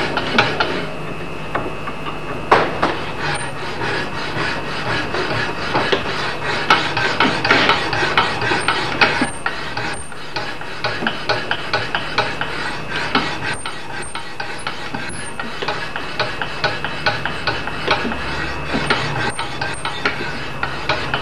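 Diamond sharpening stone rubbed back and forth along the steel bevel of an axe clamped in a grinding jig, a continuous run of rasping strokes. It is polishing and smoothing the bevel, which is coming up quite smooth.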